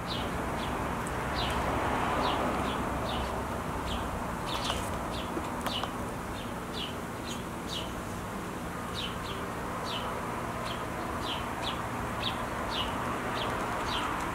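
House sparrow chirping: a short call, each dropping slightly in pitch, repeated about twice a second over a steady background rush.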